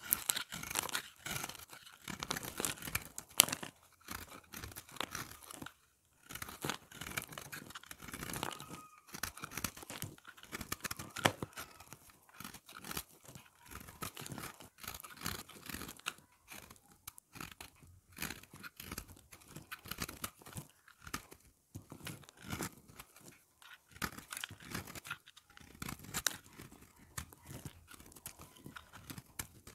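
A utility-knife blade shaving and carving a bar of dry soap: irregular runs of crisp crunching and crackling as flakes break off, with a few short pauses between strokes.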